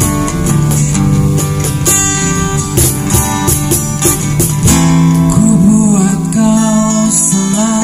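Small live acoustic band playing: a strummed acoustic guitar with an electric guitar and cajon strokes. A sung vocal line comes in about five seconds in.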